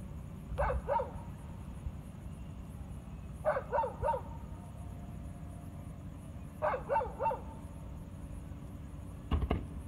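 A dog barking in three short bouts of three or four barks each, a few seconds apart, over a steady low rumble. A sharp thump near the end.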